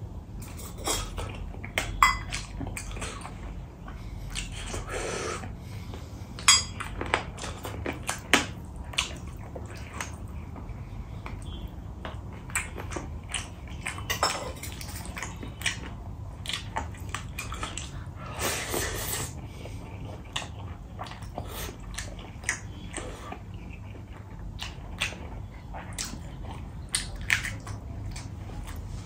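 Close-up eating sounds: chewing and wet mouth sounds, with fingers mixing rice and curry on a steel plate and tapping and scraping against it in short clicks, a few of them sharper and louder.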